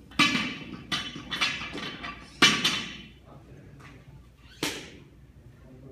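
A series of sharp thuds from a barbell with bumper plates on a rubber gym floor: five in the first three seconds, and one more a little later.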